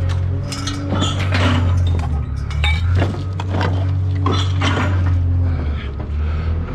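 Pieces of scrap metal clinking and clanking irregularly as they are handled and tossed together, over a steady low hum.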